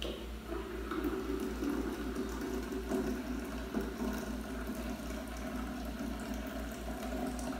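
Passion fruit juice poured in a steady stream from a blender jar into a glass jug, splashing as the jug fills, over a low hum.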